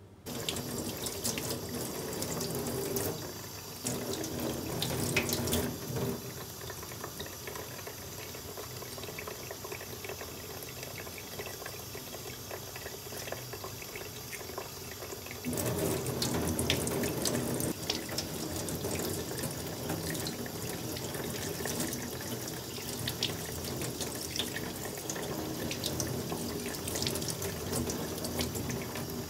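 Kitchen tap turned on and running into a stainless-steel sink, the stream splashing over hands and meat being rinsed. The splash rises and falls several times as the hands move in and out of the stream.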